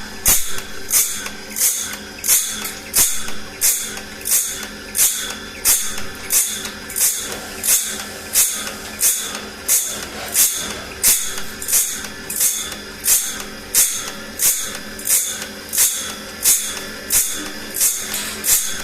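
Saw blade being sharpened: short rasping strokes repeating evenly, about one and a half a second, over a faint steady hum.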